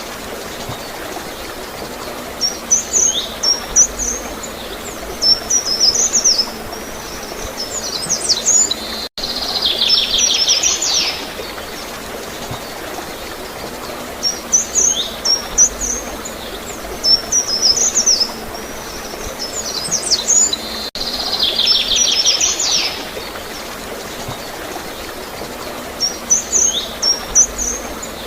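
Small songbirds chirping and trilling in short high bursts over a steady background of gurgling, flowing water. The same stretch of recording repeats about every twelve seconds, with a brief dropout at each join.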